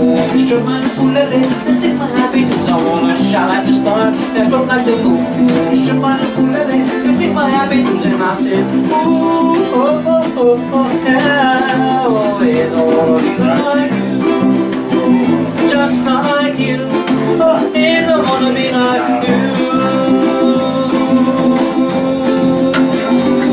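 Acoustic guitar strummed live, with a wordless melody line wavering over the chords and settling on one long held note near the end.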